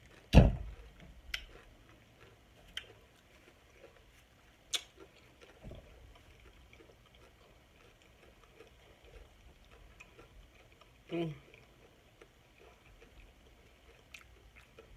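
Close-miked eating sounds of a person chewing a mouthful of taco soup: scattered wet mouth smacks and clicks. A loud sharp smack comes just under half a second in, and a short low sound falling in pitch about eleven seconds in.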